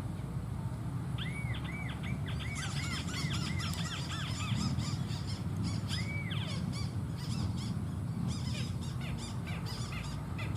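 White-browed crakes calling: a run of repeated arched notes, about three a second, that builds into a fast, overlapping chatter of higher notes.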